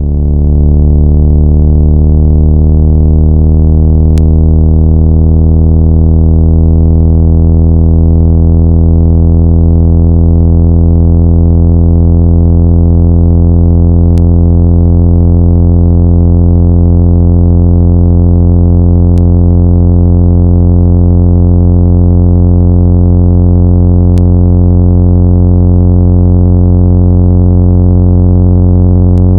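Steady, loud, low-pitched synthesized tone rich in overtones: a speaker-cleaning signal played to vibrate dust and water out of a device's speaker grille. It begins abruptly and then holds unchanged.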